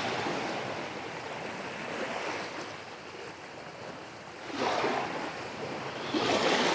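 Small waves from a calm sea lapping and washing over a sandy shoreline, swelling louder twice in the second half.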